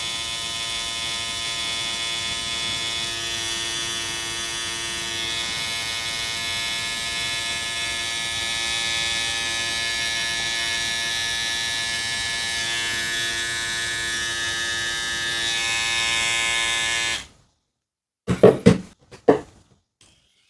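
Hair trimmer with a replica Hi-Viz blade running with a steady, quiet buzz, switched off about 17 seconds in. A few sharp knocks follow a second or two later.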